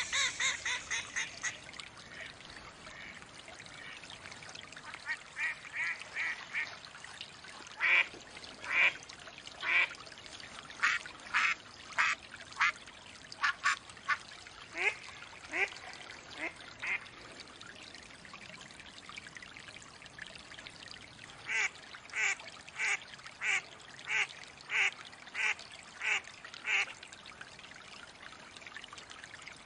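Mallard duck quacking in runs of short, evenly spaced quacks: a quick run at the start, a louder series in the middle, and another run of about nine quacks near the end. A steady trickle of running water sounds underneath.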